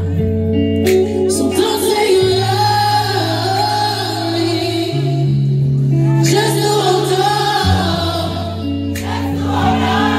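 Male singer performing a slow ballad live into a microphone over a backing track of held keyboard chords, singing in phrases with wavering, vibrato-laden held notes and short gaps between them.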